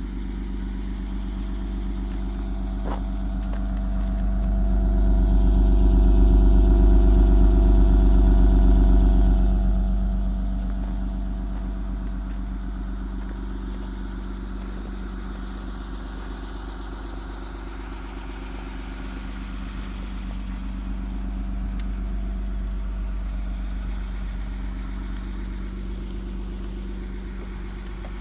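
2001 Mitsubishi Eclipse GT's V6 engine idling steadily with a low rumble, getting louder for several seconds near the start. It runs without the rod knock it had before its worn rod and main bearings were replaced.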